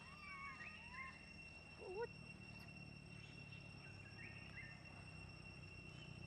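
A young macaque giving a few short, faint whimpering coo calls, the loudest about two seconds in, over a steady high whine in the background.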